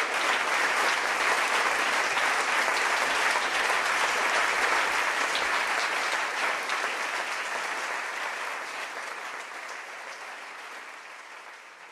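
Theatre audience applauding at a curtain call, a dense steady clapping that fades out over the second half.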